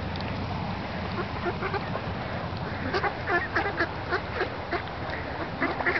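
Ducks quacking in a series of short calls, a few at first, then coming quickly, several a second, from about halfway through.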